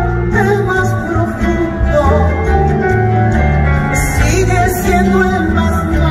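Background music with singing over a bass line.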